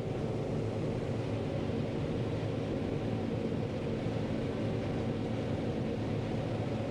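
John Deere 9500 combine running steadily while harvesting corn, a constant drone of several even tones with no change in pace.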